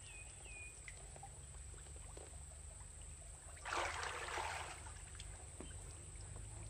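A brief splash or slosh of water about four seconds in, over a steady low hum, with a short high chirp at the start.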